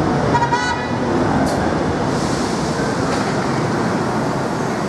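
Medellín Metro train standing at the station platform, with a steady mixed rumble and hum. About half a second in, a short buzzing warning tone sounds, and about a second and a half in, a brief high hiss.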